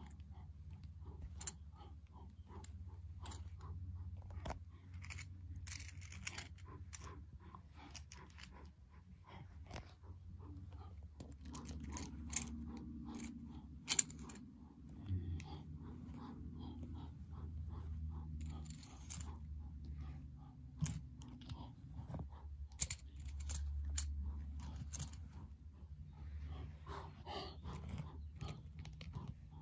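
Plastic toy crocodiles and a toy antelope being handled on a carpet: many small irregular clicks, taps and crunches of hard plastic against plastic, over a low steady hum.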